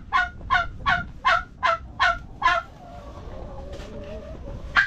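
An animal calling in a rapid series of short, loud, honking calls, about three a second, that stops a little over two and a half seconds in, with one more call near the end.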